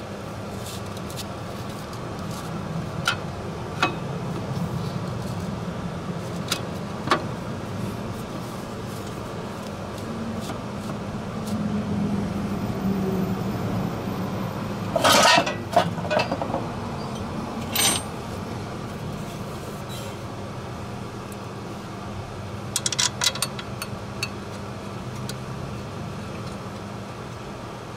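Metal clinks and knocks as a clutch disc and pressure plate are handled and set against the flywheel, over a steady low hum. The loudest run of knocks comes about halfway through, with a single knock a few seconds later and a short cluster near the three-quarter mark.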